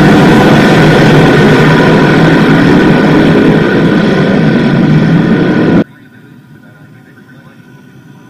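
A pack of small block modified dirt-track race cars with small-block V8s running hard through a turn, very loud. About six seconds in the sound cuts off suddenly to a faint, steady low rumble.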